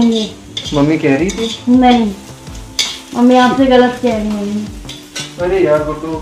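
Food sizzling as it fries in a pan on a stove, with a spoon stirring it. Over this, a pitched, voice-like sound rises and falls several times.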